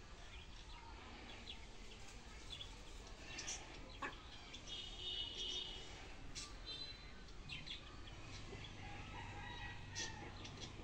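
Chickens foraging, giving faint, scattered short calls, with one longer high call about halfway through and a few sharp clicks.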